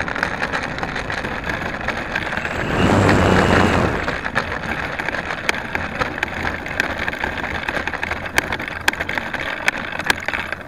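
Radio-controlled Sig Senior model airplane rolling over rough dirt on its landing gear, the airframe rattling with many sharp clicks and knocks over the steady whine of its motor. The motor gets louder for about a second, about three seconds in.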